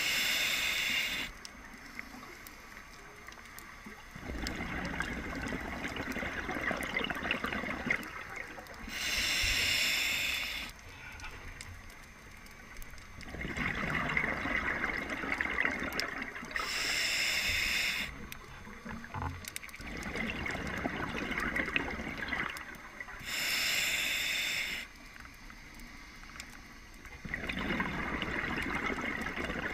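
Scuba diver breathing through a regulator underwater. A short hiss on each inhale alternates with a longer rush of exhaled bubbles, in a slow, even cycle of about seven seconds, four breaths in all.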